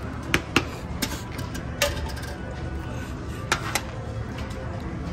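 Casino chips clicking against each other and onto the felt table: about six sharp clicks, the loudest about a third of a second in, over a steady casino background hum.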